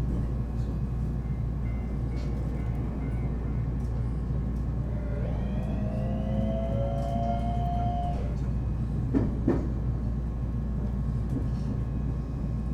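Electric commuter train heard from inside the front car: a steady running rumble, with a slowly rising electric whine from the traction motors from about five to eight seconds in. About nine seconds in come two sharp knocks in quick succession, wheels passing over a rail joint.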